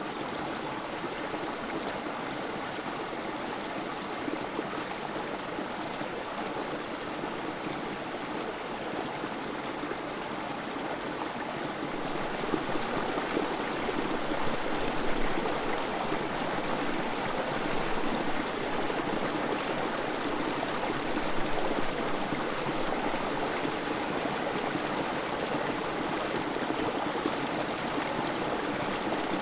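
Creek water running steadily over rocks in a small spill, a continuous trickling and splashing. It gets somewhat louder about twelve seconds in.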